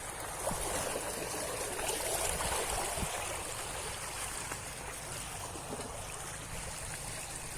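River water running and trickling steadily.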